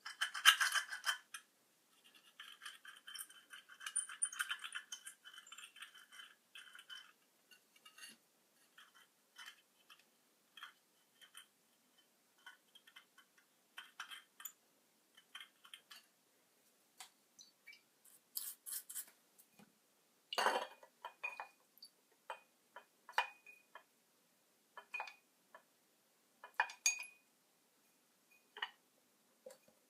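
Hand work on small parts: a few seconds of rapid scraping or rasping, then scattered small clicks and clinks, with one louder knock about two-thirds of the way through.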